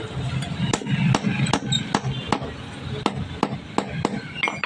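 Hammer striking steel on an anvil, forging a rod into a spear head: a steady rhythm of about two and a half blows a second over a low steady hum.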